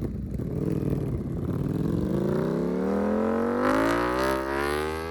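Ducati V4 engine through a new aftermarket exhaust, pulling in gear. Its revs climb slowly and steadily as the bike accelerates.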